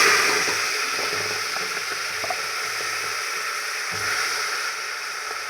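Wet ground masala paste of tomato, onion, garlic and ginger sizzling in hot oil with cumin seeds. The sizzle is loudest at first and gradually settles to a steady frying hiss.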